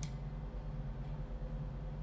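A single sharp click right at the start, then only a low steady background hum: room tone of a home recording setup.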